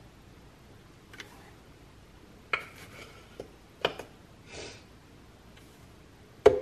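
A measuring spoon scooping nutritional yeast flakes from a glass jar: a few light clinks and scrapes against the glass, and a soft rustle as the flakes are tipped into a plastic blender jar. A louder knock comes right at the end.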